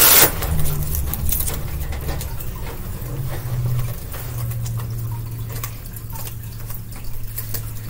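Soft rustling and light pattering of a cloth cage liner being smoothed by hand over the floor of a wire-grid cage, over a low hum. A sharp click comes right at the start.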